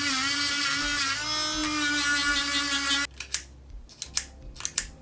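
Small handheld rotary tool running at high speed with a steady whine. Its pitch dips briefly as it is held against a small metal part, and it is switched off about three seconds in. A few light handling clicks follow.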